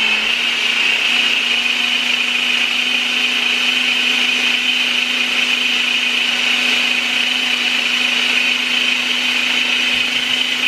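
Ninja personal blender running steadily at full speed, blending a cupcake batter of bananas, eggs and carob powder: a loud, even motor whir with a steady hum.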